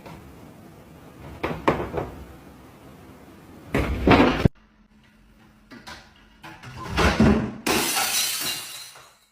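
Household knocks, then a sudden crash about four seconds in, and a longer breaking, shattering clatter near the end: something, likely glass, smashing.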